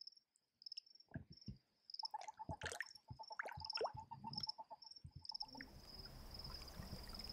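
Faint male western toad chirping in a rapid run of short pulses for a few seconds, among knocks and splashes of toads scuffling in shallow water. A cricket chirps at a high pitch about twice a second throughout, running into a steady trill near the end.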